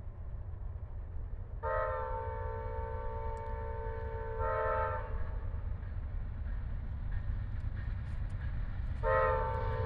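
Amtrak Auto Train locomotive's multi-chime air horn. One long chord begins about two seconds in and lasts about three seconds, growing louder just before it stops. A second blast starts near the end, over a steady low rumble.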